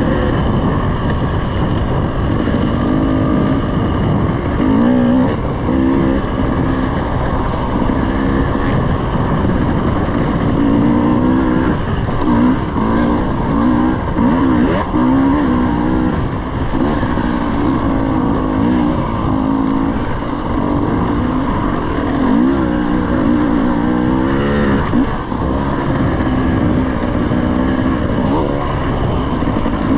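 300cc two-stroke dirt bike engine under way on a trail, the revs rising and falling constantly with the throttle, over a steady rumble of noise.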